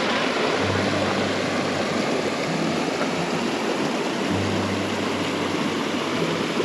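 Steady rushing of a mountain creek's running water, with a faint low hum that comes and goes.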